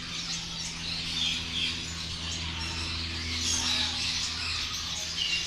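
A roomful of caged finches, saffron finches among them, chirping and twittering together in many overlapping short calls, over a steady low hum.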